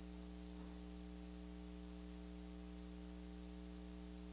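Steady electrical mains hum with a faint hiss behind it.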